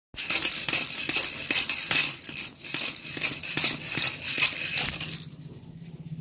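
A baby's toy rattle (jhunjhuni) being shaken, a fast, uneven rattling of beads that stops abruptly about five seconds in.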